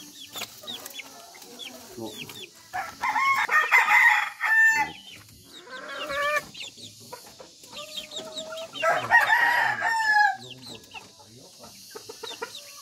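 Roosters crowing twice, a long call about three seconds in and another about nine seconds in, over scattered clucking of chickens.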